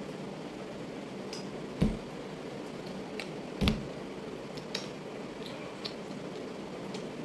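Steady room hiss, broken by two dull thumps about two seconds apart and a few faint clicks and taps from hands moving and touching close to the microphone while signing.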